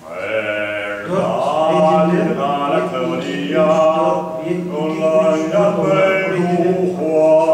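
A man's voice chanting in long, drawn-out held notes, starting suddenly after a brief quiet and continuing without break.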